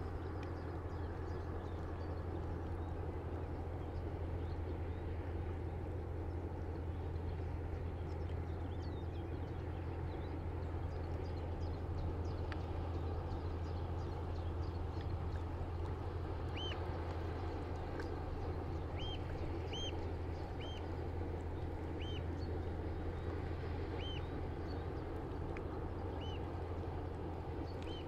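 River water lapping against a breakwater over a low, steady drone. From about halfway, a water bird gives short repeated calls, about one a second.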